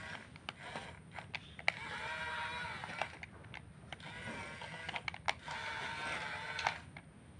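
Background music with a melodic, voice-like line, broken by scattered sharp clicks.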